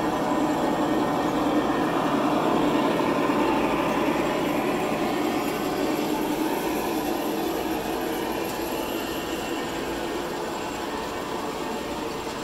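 G-scale model freight train rolling past, its cars' wheels making a steady rumble on the track that grows a little quieter in the second half.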